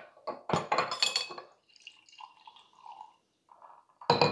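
A bottle of carbonated coffee kombucha opened under a towel, releasing about a second of fizzing hiss. The kombucha is then poured through a small mesh strainer into a glass with a quiet trickle, and a clatter of glassware comes near the end.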